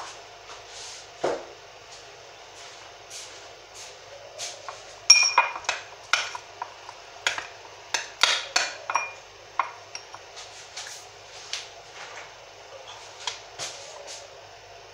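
Metal spoon stirring in a cut-glass tumbler, clinking repeatedly against the glass, with a few clinks left ringing; the clinking is densest in the middle and thins out toward the end. One dull thump about a second in.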